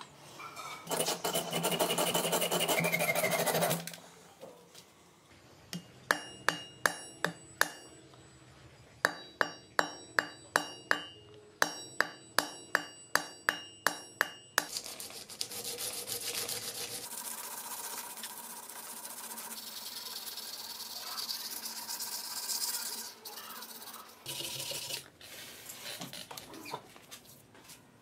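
A small hammer tapping on the karambit's handle over a steel anvil block, in two runs of sharp ringing strikes, about three a second. Before that comes a short stretch of loud scraping, and afterwards a long spell of steady filing and rubbing on the knife clamped in a vise.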